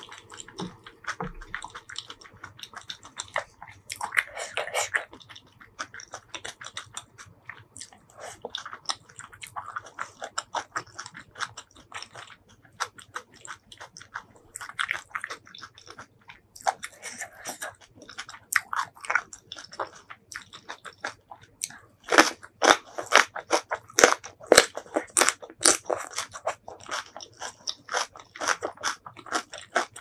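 Close-miked eating sounds: crisp crunching and wet chewing of green chili kimchi and noodles. The crunching comes thick and loudest in the last third.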